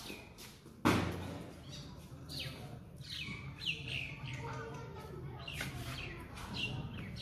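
A single sharp crack about a second in, then birds chirping in short, falling calls.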